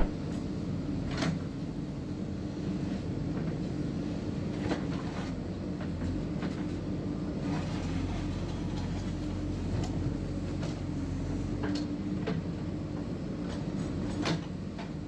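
JCB 3DX backhoe loader's diesel engine running steadily while working, with a few sharp metallic knocks from the machine at irregular intervals.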